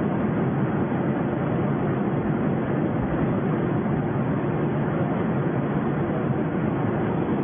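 Steady cabin noise of an airliner in flight, heard from inside: an even, unbroken mix of jet engine and airflow noise, strongest in the low range.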